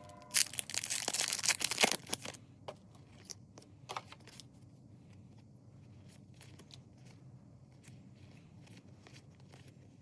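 A small plastic pack wrapper torn open with loud crinkling for about two seconds, then faint rustles and light taps as the contents are handled.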